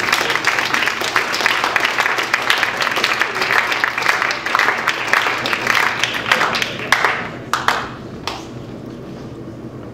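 Audience applauding, dying away to a few last claps about eight seconds in.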